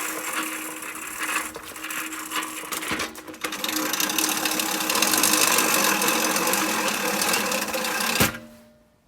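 Manual push reel mower's spinning reel blades whirring and clattering against the bed knife as it is pushed through tall grass, chopping it. It falters briefly about three seconds in, runs louder after that, and stops abruptly with a knock near the end.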